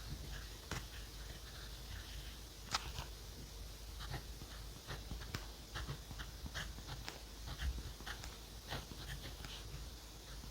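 Pen scratching on journal paper in short, irregular strokes, with a few sharper ticks, about three seconds in and near eight seconds.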